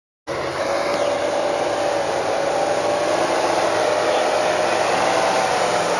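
Classic Range Rover V8 engine held at high revs: a steady whine that wavers slightly over a loud rushing noise, starting abruptly a quarter second in.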